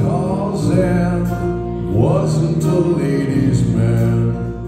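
Live band music: strummed acoustic guitar with a male voice singing.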